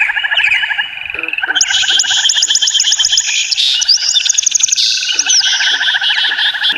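A dense animal chorus of frogs calling in rapid pulsed trills, overlapping, with higher chirping calls layered over them that grow louder about a second and a half in.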